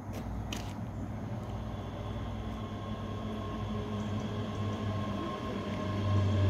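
ScotRail Class 385 electric multiple unit approaching along the track, its running hum and a steady high whine growing louder as it nears. Two short clicks come about half a second in.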